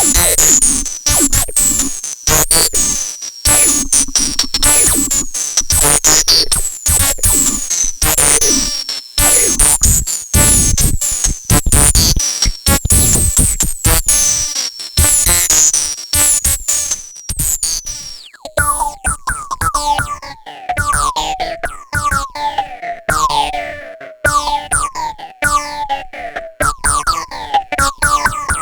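Electronic synthesizer music: a steady pulse of percussive hits with repeated high, falling zaps. About two-thirds of the way through, the zaps drop to a lower pitch.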